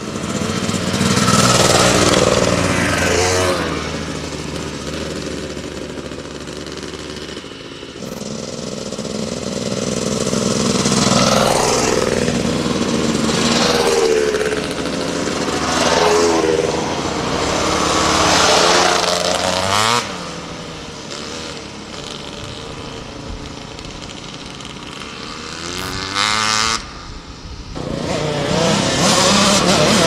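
Off-road dirt bike engines revving as the bikes pass one after another. Each engine swells and its pitch bends as it goes by, and the sound breaks off abruptly twice.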